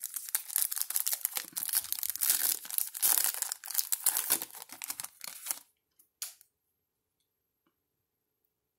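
Shiny foil wrapper of a Panini Contenders Draft Picks football card pack being torn open and crinkled by hand for about five and a half seconds, with one short rustle a little later.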